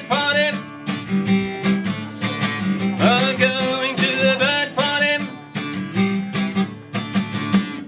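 Acoustic guitar strummed in a steady rhythm under a man singing two short sung phrases, the closing bars of a folk song.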